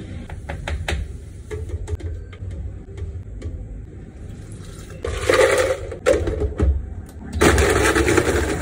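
Clicks and knocks as ingredients go into an empty plastic blender jar, then liquid poured in with a loud rush about five seconds in. About seven and a half seconds in, the countertop blender starts and runs steadily, blending ice into a frappe.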